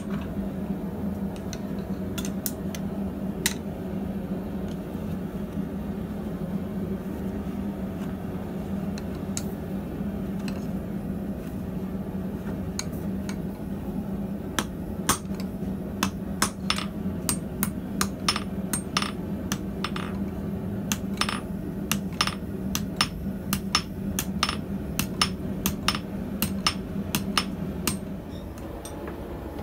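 Hand hammer striking red-hot steel tong jaws on an anvil: a few scattered blows at first, then steady forging at about two blows a second through the second half. A steady low hum runs underneath and stops near the end, together with the hammering.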